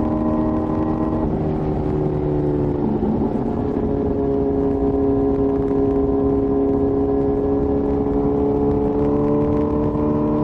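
Kawasaki ZX-10R inline-four exhaust while riding. The engine note changes about a second in and again about three seconds in, then holds a steady pitch that rises slowly.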